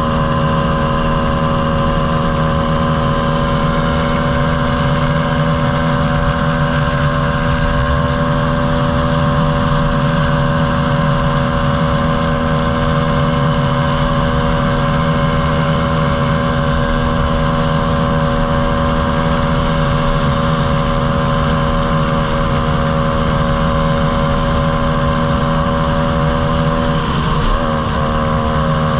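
Small single-cylinder four-stroke pit bike engines running at a steady cruising speed, the pitch held level, with a brief wobble and a slight drop in pitch near the end as the throttle changes.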